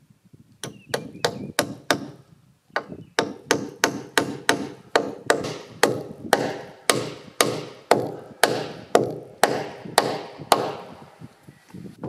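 Hammer striking at the joint of a log roof truss, a steady run of sharp blows about two a second, with a brief pause about two seconds in, ending a second and a half before the end.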